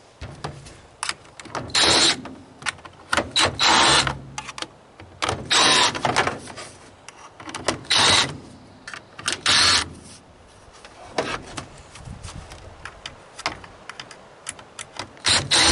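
Cordless drill-driver backing Phillips-head screws out of a washing machine part: a series of short whining motor bursts with clicks and rattles between them.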